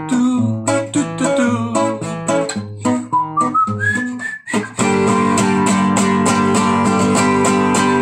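Acoustic guitar played between sung lines: changing chords for the first half, then from about halfway a rapid, even strumming of one held chord.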